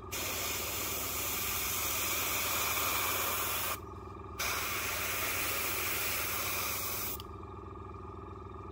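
Fengda airbrush spraying paint: a steady hiss of air in two bursts, about three and a half and then about three seconds long, with a short break between, over a low steady hum.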